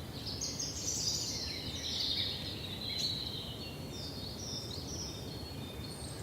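Forest ambience: several songbirds chirping and twittering in quick, high notes, over a steady low background rumble.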